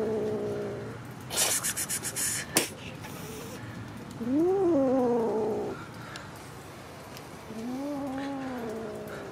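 Kitten meowing: long drawn-out meows that rise and then fall in pitch, about three of them. Between the meows comes a short pulsing hiss and one sharp spit.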